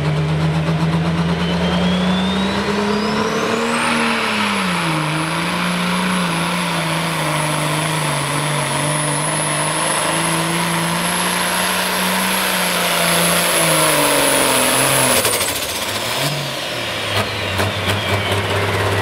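International pulling tractor's turbocharged diesel engine revving up to launch a pull, its turbo whine climbing over about four seconds to a high steady pitch and held there under load as it drags the weight-transfer sled. About fifteen seconds in, the engine and turbo whine fall away together, followed by a run of crackles.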